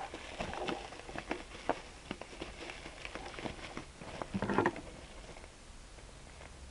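Plastic packaging and bubble wrap being handled, with scattered light rustles and clicks; a brief vocal sound about four and a half seconds in.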